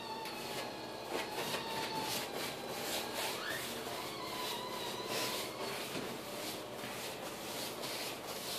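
Bristle paintbrush scrubbing paint onto a wrinkled, textured wall in quick repeated scratchy strokes, dry-brushing with little paint on the brush. A faint wavering whine sounds underneath.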